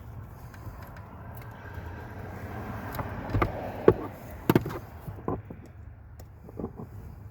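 A drywall screw being driven by hand with a screwdriver into the plastic of a steering-column ignition switch: a scraping that builds over the first few seconds, then several sharp knocks and clicks of the tool and parts, the loudest about four seconds in.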